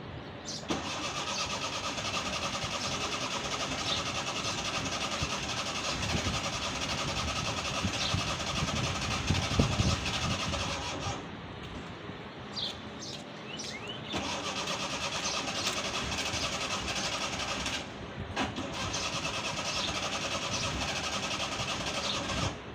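Suzuki Mehran's carbureted three-cylinder engine being cranked on the starter in three long bouts, struggling to catch on a cold start, with louder uneven pulses near the middle of the first bout.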